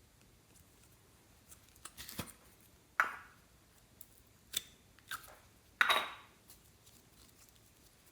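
Slime being handled, about five short sticky crackles and pops. The loudest come about three and six seconds in, each trailing off quickly.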